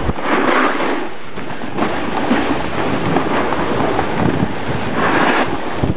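Snowboard sliding and scraping over packed snow, with the rush of wind over the microphone from riding downhill. The noise is loud and steady and swells briefly near the start and again near the end.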